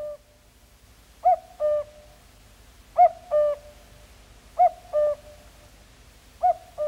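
Cuckoo call: the two-note 'cuck-oo', a higher note falling to a lower one. It repeats four times, about every 1.7 seconds.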